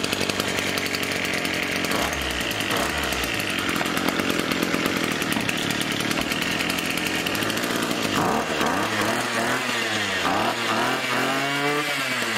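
Small 42cc two-stroke engine running steadily, then revved up and down several times with the throttle in the last few seconds.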